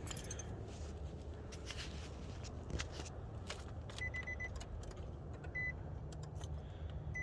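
Car keys jingling and clicking as the key is put into the ignition of a Nissan Sentra, with two short electronic beeps from the car about four and five and a half seconds in.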